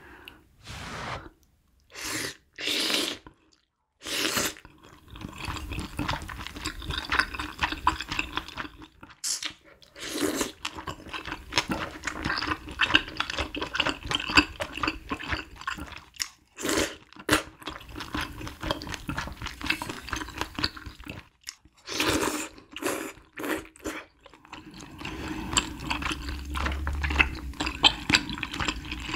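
Close-miked eating of spicy hot pot soup with noodles: wet slurping from a wooden spoon and chewing, with a few separate loud mouthfuls in the first few seconds and then near-continuous wet chewing.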